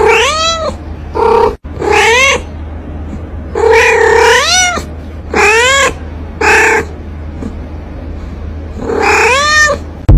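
A cat meowing and yowling in about seven separate calls, each rising then falling in pitch and lasting under a second, with the longest about four seconds in. The calls come from a frightened, defensive cat with its back arched.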